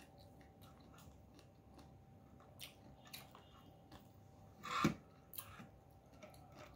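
Quiet chewing and small mouth sounds of a person eating noodles, with scattered light clicks of wooden chopsticks against a ceramic bowl and one louder short sound a little under five seconds in.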